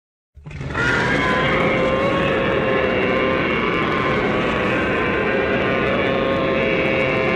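Allosaurus sound effect: one long, steady roar that starts about half a second in and holds for about seven seconds.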